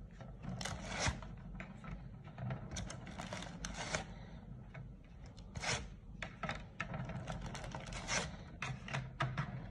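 Dry lasagna sheets being slid and pressed into place in a metal baking tray by hand: irregular light scrapes and rubs, with a few sharper taps, over a steady low hum.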